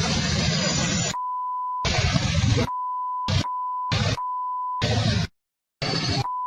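A steady, single-pitched beep tone that cuts in and out about five times, swapping abruptly with short bursts of loud, noisy audio. About five seconds in there is half a second of dead silence.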